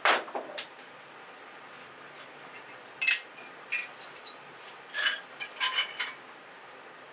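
Sharp clinks and knocks of small hard objects being handled and set down on a stone window ledge. A loud knock opens it, then a few scattered clinks follow, with a quick run of them a little before the end.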